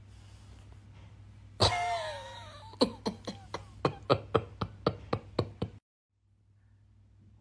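A voice gives one loud cry that falls in pitch, followed by a run of about a dozen short, sharp vocal bursts at roughly four a second, which cut off suddenly.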